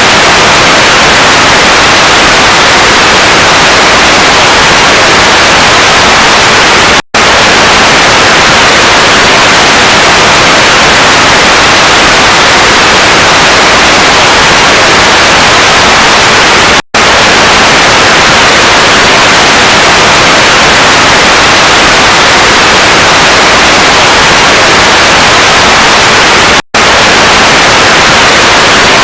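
Loud, steady static hiss, broken by three split-second dropouts about ten seconds apart.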